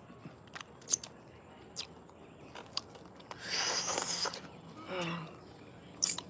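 A man chewing a piece of raw aloe vera leaf: scattered soft mouth clicks and smacks, with a longer hiss-like stretch about three and a half seconds in.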